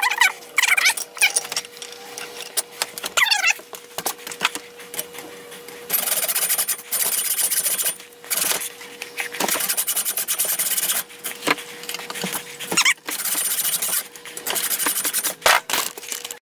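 Hacksaw cutting through a wall-adapter transformer, back-and-forth rasping strokes about once a second.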